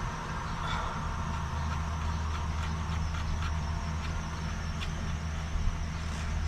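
Dump truck's engine idling, a steady low hum heard from inside the cab, with a few faint clicks.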